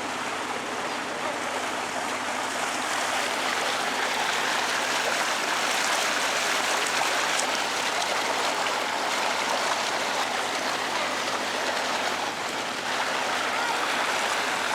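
Steady rushing and splashing of water along a moving canal tour boat, with a faint low steady hum underneath.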